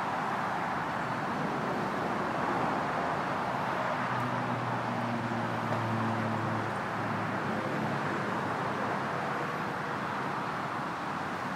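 Crane diesel engines running steadily under a lift, with a deeper engine hum that comes in for a few seconds around the middle.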